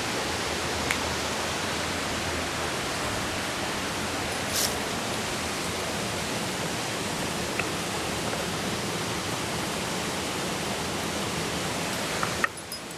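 Steady rushing of a mountain river, with a few faint clicks over it. The rush drops away suddenly near the end.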